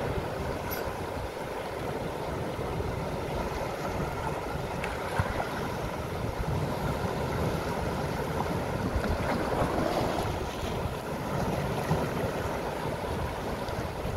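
Sea waves washing over coastal rocks, with wind buffeting the microphone in a steady low rumble.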